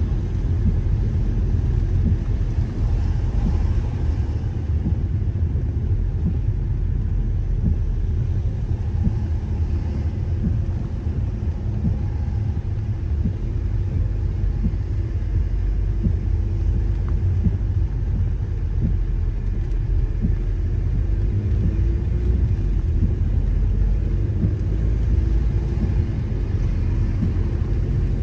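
Steady low rumble of a car's engine and tyres on a wet road, heard from inside the moving car's cabin, with light scattered ticks.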